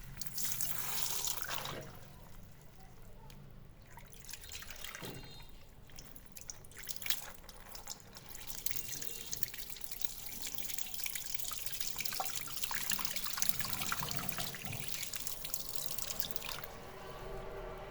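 Water balloons being popped: water splashing, trickling and dripping, with a few sharp splats.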